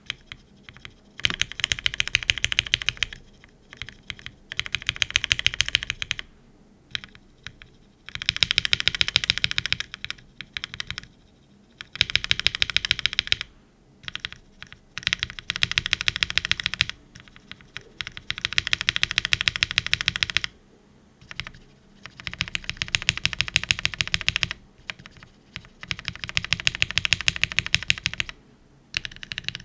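Fast bursts of typing on a Neo75 CU custom mechanical keyboard with an aluminium plate, no foam and GMK keycaps, fitted with scratchy mechanical switches. The bursts come in quick succession, each a second or two of rapid key clacks, with short pauses between them.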